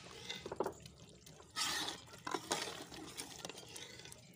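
A steel ladle stirring thick, wet mustard greens (saag) in a steel pot on the fire, with a few sharp clinks and a brief louder hiss a little before the middle.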